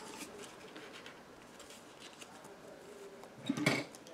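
Faint handling sounds of fabric, clear plastic and bias binding being positioned under a sewing machine's presser foot: soft rustles and a few light ticks. A short burst of voice comes about three and a half seconds in.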